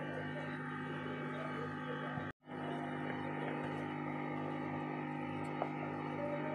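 A steady hum of several held tones, cut off for a moment about two and a half seconds in.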